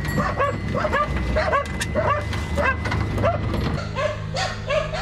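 A small dog yipping and barking over and over, about three short high yips a second.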